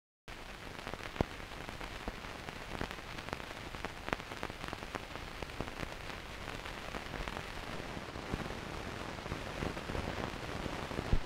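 Steady hiss with irregular crackles and pops, cutting in suddenly just after the start, with a sharper pop about a second in.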